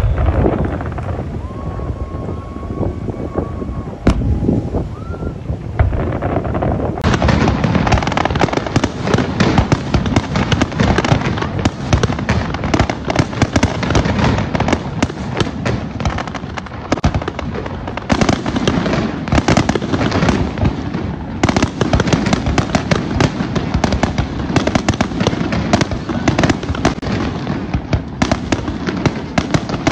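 Aerial fireworks bursting, with separate bangs at first and then, from about seven seconds in, a dense, continuous crackle of many bursts.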